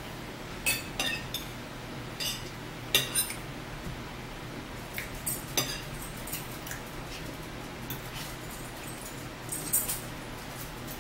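Metal forks clinking and scraping against dinner plates during a meal: a scattering of short, sharp clinks, the loudest about three seconds in, over a steady low hum.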